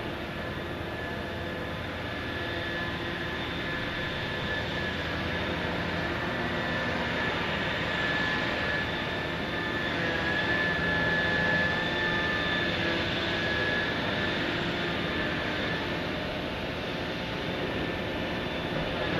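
Heavy hydraulic excavator machinery running steadily, with a high whine that swells louder in the middle and then eases.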